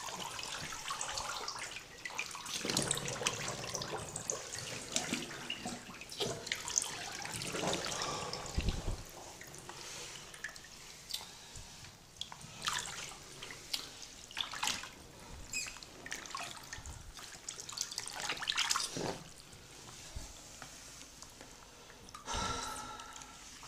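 Water splashing and dripping in a bathtub around a person's legs as they shift in it, with irregular small splashes throughout. A short pitched squeak comes near the end.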